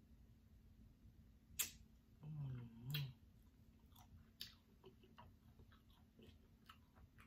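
Close-miked eating sounds from chewing roast Cornish hen: scattered lip smacks, finger licks and wet mouth clicks. A short two-part hum comes about two seconds in.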